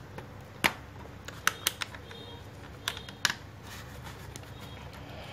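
LEGO Iron Man Hall of Armor plastic pieces clicking as hands handle the modules and pull them apart: a few sharp, irregularly spaced clicks of plastic on plastic.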